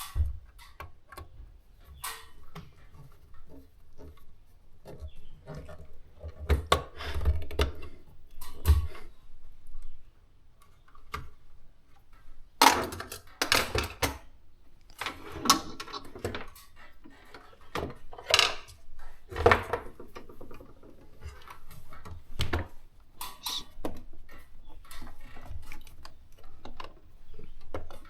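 Irregular handling noises: clicks, knocks and short rattles of tools and small hardware being worked by hand, with the busiest stretch in the middle.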